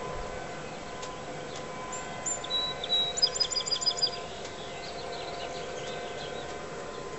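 A small songbird chirping, then a quick trill of repeated high notes, about two to four seconds in, over a steady faint hum.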